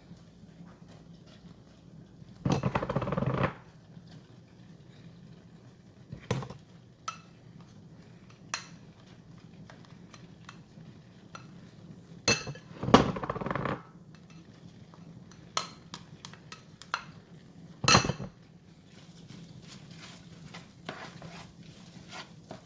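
A kitchen utensil clinking and scraping against a saucepan while cheese is added to a sauce and stirred. There are several sharp clinks and two scrapes of about a second each, one about three seconds in and one near the middle.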